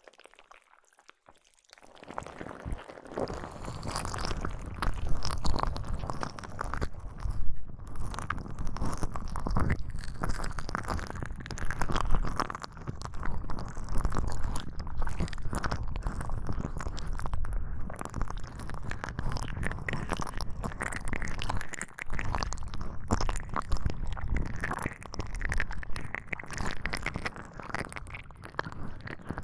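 Binaural ASMR ear-cleaning sounds: dense crackly scratching and rubbing right at both ears of a binaural microphone, with a low rumble, standing for tentacles cleaning both ears. It starts about two seconds in after a short quiet.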